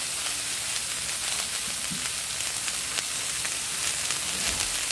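Cabbage, carrots and sausage sizzling steadily as they stir-fry in an aluminium kawa (wok), with scattered light clicks of the metal spatula against the pan.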